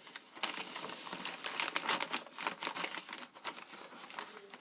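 Wrapping paper crinkling and crackling as it is folded and tucked around a tin. The crackles come in a quick, irregular run that thins out in the second half.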